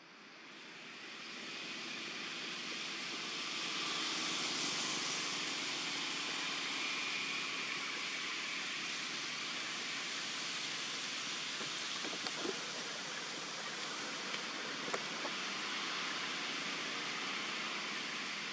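Steady outdoor background hiss, fading in over the first few seconds and then even, with a few faint ticks near the middle.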